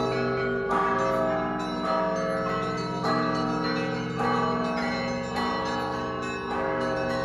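Russian Orthodox church bell ringing on a set of 17 bells played by a single bell ringer with ropes and a foot pedal. Fresh strokes come a little over once a second, with many bells of different pitch ringing on and overlapping one another.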